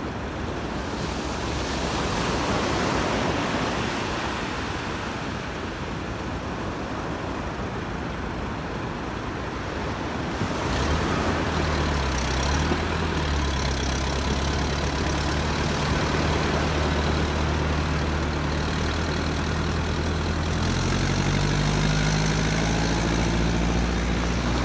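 Surf washing on the beach, then about ten seconds in a tractor engine comes in, running steadily with a low hum, and revs up near the end, its pitch rising as it hauls a basket boat on its trailer out of the water.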